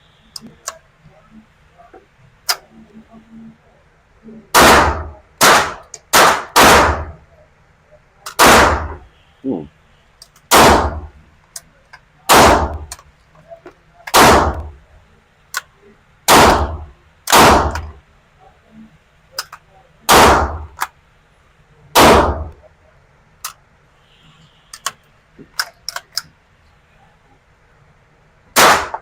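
A GSG .22 LR semi-automatic rifle firing single shots: about a dozen sharp cracks, irregularly spaced one to two seconds apart, with faint clicks and pops between them.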